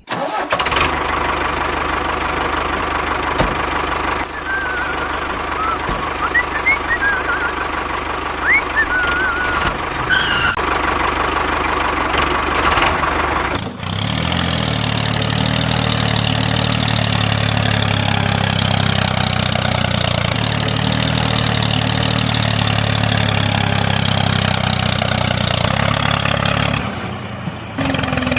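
Small engine of a home-built mini tractor running steadily. About halfway through the sound changes abruptly to a steadier, lower running note.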